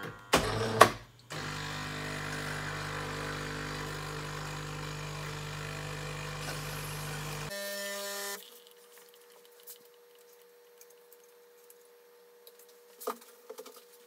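Jura Impressa C5 coffee machine running its cleaning cycle: two sharp clicks, then its pump hums steadily for about six seconds, sending water out through the coffee spouts, before it stops. A faint hum and a few soft clicks follow, with a knock near the end.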